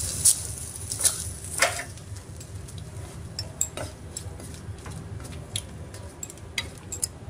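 A wooden spatula stirring a thick tomato-and-spice masala in a nonstick kadai, with irregular knocks and scrapes against the pan, over a steady low hum. The knocks are sharpest in the first two seconds and turn to lighter, scattered ticks after that.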